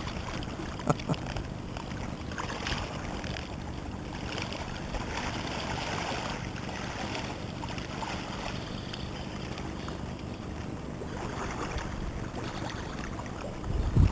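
Shallow river water rippling over stones, with the splashing of waders pushing through the water as a person wades across. A couple of short knocks about a second in and a louder thump at the very end.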